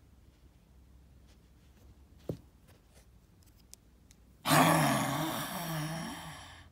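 A person voicing a loud growling dinosaur roar for a Lego raptor figure, starting suddenly about four and a half seconds in and trailing off over two seconds. Before it come faint clicks of the plastic figure being handled.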